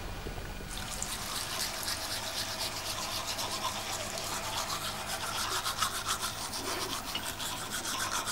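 Rapid, rhythmic scrubbing strokes, several a second, starting about a second in.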